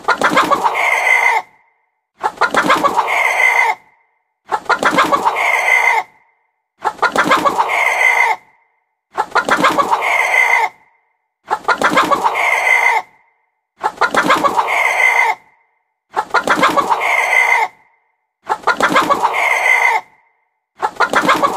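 A chicken clucking in a quick run of notes about one and a half seconds long, repeated the same way roughly every two seconds with silence between: one recording played on a loop.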